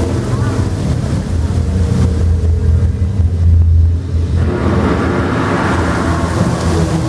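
Low, steady rumble of a park ride train running through a dark section, loudest about three to four seconds in, with a rushing, hissing noise joining it from about halfway through.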